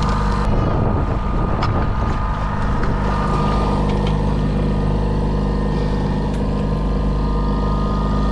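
Boat motor running steadily, an even drone that holds the same pitch throughout.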